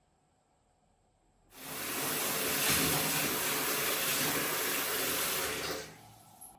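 Water running hard from a tap, a steady rushing hiss that starts suddenly about a second and a half in and dies away near the end.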